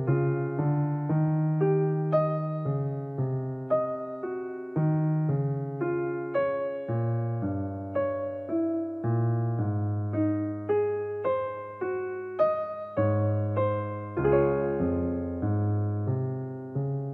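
Background piano music: a slow melody of struck notes, about two a second, over lower bass notes. It ends on a chord that rings out and fades near the end.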